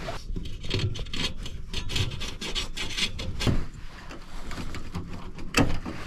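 Rapid, irregular rustling, scraping and clicking as wire and a tool bag are handled and rummaged through, with one sharper knock about five and a half seconds in.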